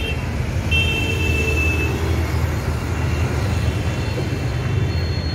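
Road traffic noise: a steady low rumble of passing vehicles, with a thin, high-pitched steady tone in the first two seconds that then stops.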